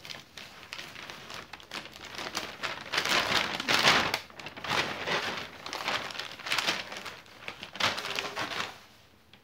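Hands crumpling and smoothing a crinkly silver plastic sheet, in irregular rustling bursts that are loudest about three to four seconds in and stop near the end.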